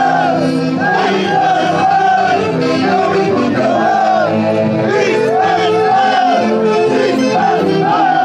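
Live music from a Peruvian festival orchestra, loud and continuous, with short rising-and-falling melodic phrases about once a second over steady lower notes.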